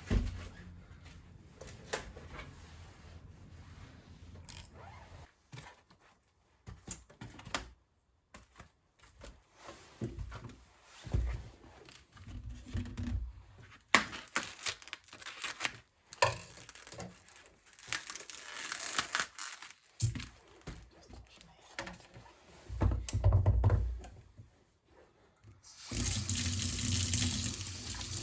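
Kitchen sounds of items being handled: scattered clicks, knocks and rustles with a few low thumps. Near the end a kitchen tap is turned on and runs steadily.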